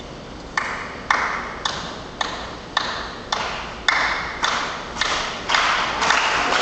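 The skit's mysterious ticking noise: a steady beat of sharp ticks, just under two a second, starting about half a second in. Each tick has a ringing ping and a short echoing tail.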